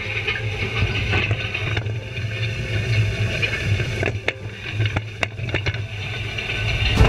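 Tractor engine running as a Pickett bean cutter's knife divider is pulled through dry bean plants: a steady low rumble and rushing noise, with a few sharp cracks and knocks along the way.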